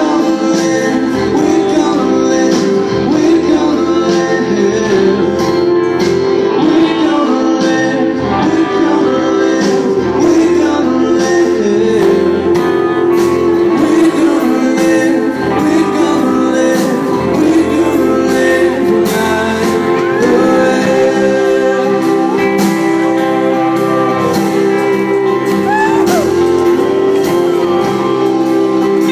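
A rock band playing live, with singing over acoustic and electric guitars, heard from among the audience in a concert hall.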